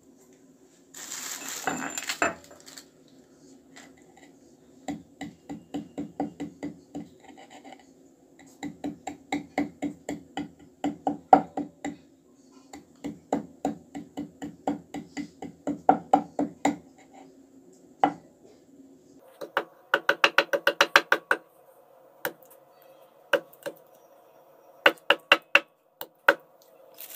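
A brief rustling scrape, then repeated sharp pounding strikes in runs of a few seconds at about four a second, faster and brighter near the two-thirds mark, then a few scattered single strikes: ingredients being crushed by hand for a home remedy.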